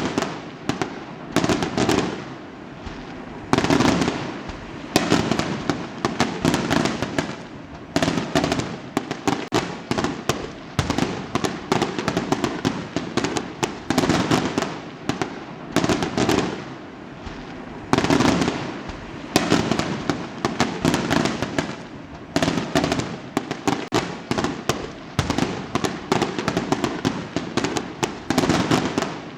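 Fireworks going off in a dense, continuous barrage: many overlapping bangs and crackles, with louder volleys every few seconds.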